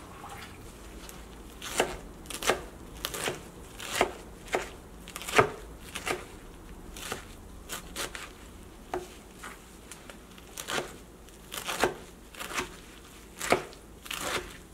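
Kitchen knife chopping a heap of bean leaves on a wooden cutting board. It starts about two seconds in and goes at roughly two uneven strokes a second, with short pauses.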